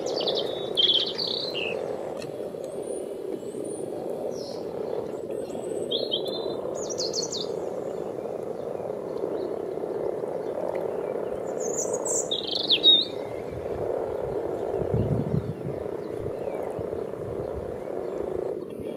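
A chorus of many common frogs croaking steadily and low, with short bird chirps on top: a few at the start, around six seconds in and a louder one around thirteen seconds in. Wind rumbles on the microphone briefly about three-quarters of the way through.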